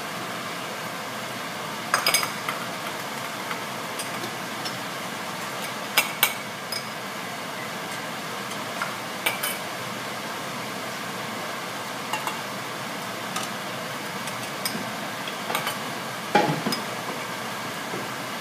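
Metal ladle and canning funnel clinking against a glass jar and the rim of an aluminium stockpot as boiled string beans are ladled into the jar. The clinks come once or twice every few seconds over a steady background hum.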